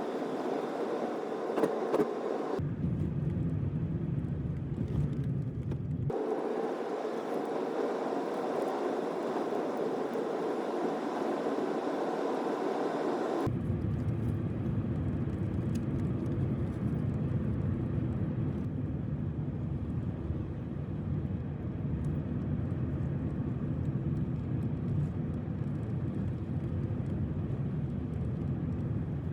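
Steady road and engine noise of a vehicle driving, switching abruptly a few times between a higher hiss and a deeper rumble.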